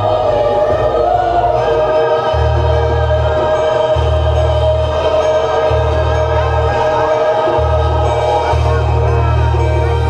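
Choral music: a choir singing sustained chords over deep bass notes that change about every second.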